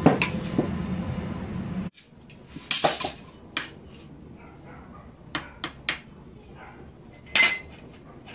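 Hammer blows on a steel blade at a small anvil over a steady low rumble, breaking off about two seconds in. Then come scattered metallic clinks and taps while a handle is fitted to the blade: a few quick ones, and a louder ringing one near the end.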